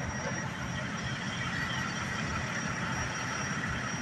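Steady low engine rumble with street traffic noise, and a thin steady high-pitched tone over it.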